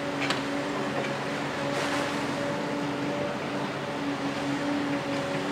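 Doosan DX255LC-5 tracked excavator, its six-cylinder DL06P diesel and hydraulics running steadily with a continuous droning tone as it swings and raises its boom. A faint clink about a quarter of a second in.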